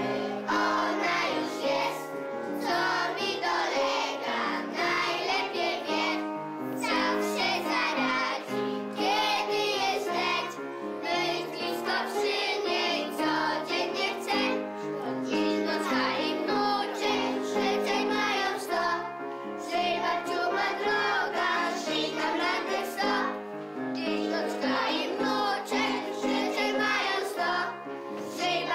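A group of young children singing a song together in unison, over a steady musical accompaniment.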